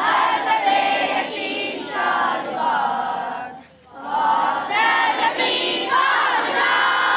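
A large group of schoolboys singing together in unison, with a short break between lines about halfway through.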